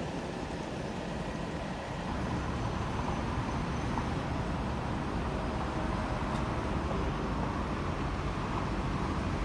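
Steady low rumble of city street traffic and running vehicles, getting slightly louder about two seconds in.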